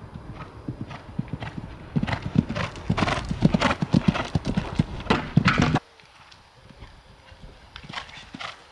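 Hoofbeats of a ridden horse in quick succession, much louder from about two seconds in, then cutting off suddenly, leaving only faint hoofbeats.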